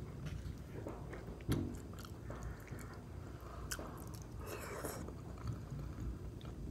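A person chewing and biting into a forkful of barbecue food close to the microphone, with a few short sharp clicks scattered through the chewing.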